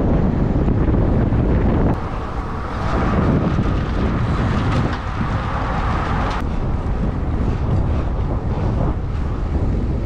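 Wind buffeting the microphone of a camera on a moving road bike, a loud, steady rush with most of its weight low down. It shifts abruptly about two seconds in and again about six seconds in.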